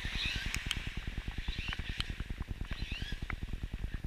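Birds chirping in short, scattered calls over a fast, even low fluttering of about a dozen pulses a second, with a few sharp clicks.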